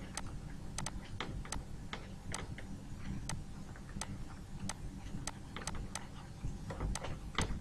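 Light, irregular clicks, about two or three a second, from a stylus tapping on a pen tablet as a word is handwritten, over a faint steady low hum.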